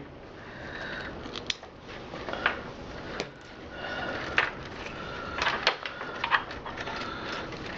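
Scattered clicks and light plastic knocks of cable connectors being worked loose and pulled from a desktop PC's power supply, with a few scrapes.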